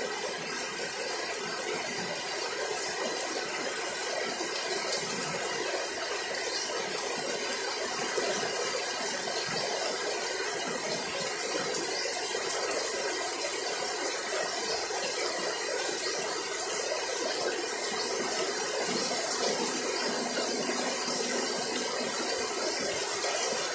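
Heavy rain pouring steadily, an even hiss of rain on leaves that never lets up.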